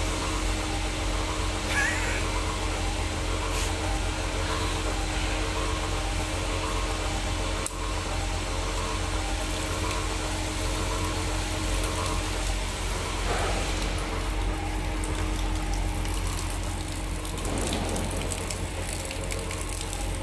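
15 ppm bilge water separator's electric pump motor running steadily, a constant hum with several steady tones.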